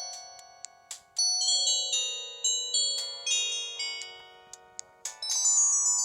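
Samsung SGH-C260 mobile phone playing one of its preloaded polyphonic ringtones through its small speaker: a melody of short, high notes that strike and fade. It breaks off about a second in and again shortly before the end, each time starting a fresh phrase.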